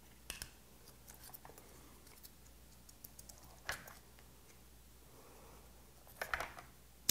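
Faint, scattered clicks and taps of boiled white whelk shells and a thin metal pick being handled, mixed with small eating sounds, with a short run of louder clicks near the end.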